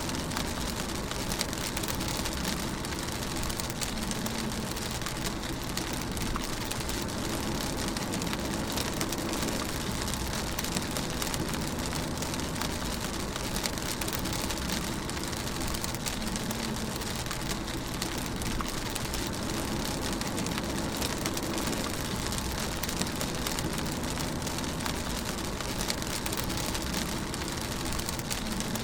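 Rain pattering steadily on a car's roof and windscreen, heard from inside the moving car, over a low steady road and engine rumble.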